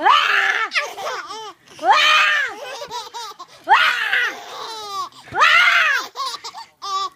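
Infant laughing in repeated high-pitched bursts, about five peals a second or two apart, each rising and falling in pitch.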